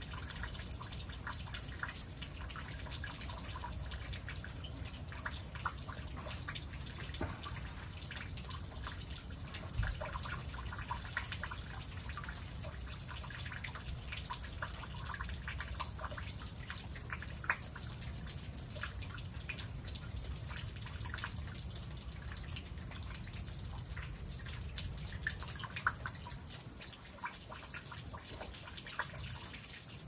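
Meltwater dripping from icicles on the porch eaves and from ice-coated trees as an ice storm thaws: a dense, irregular patter of many drips and taps over a low steady rumble.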